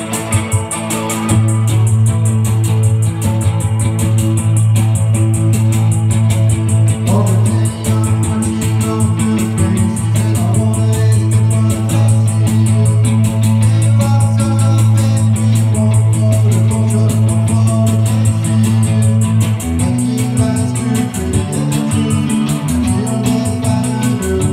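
Lo-fi cold wave / punk band playing live, with electric guitar over a held low note. About three-quarters of the way through, the low part breaks into a choppier, pulsing rhythm.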